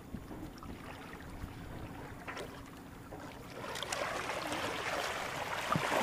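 Water splashing as a large redfish (red drum) thrashes at the surface beside the boat while it is lifted out. The splashing starts a little past halfway and gets louder, after a quieter start of lapping water.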